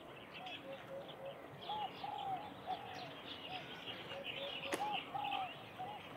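Doves cooing: repeated short, arched coo notes in phrases, with small birds chirping faintly behind them.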